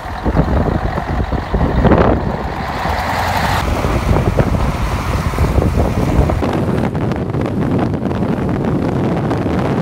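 Road vehicle engines running in a blizzard: a steady low rumble mixed with wind noise.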